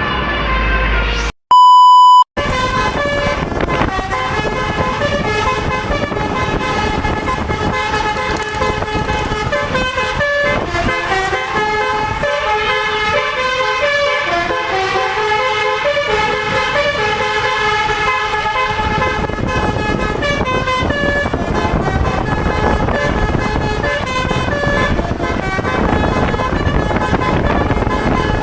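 Bus 'telolet' horn, a set of electric air horns playing a melody of quick stepped notes over vehicle noise. A short, very loud beep about two seconds in. The tune stops at about twenty seconds, leaving a steady rumble of vehicle and wind noise.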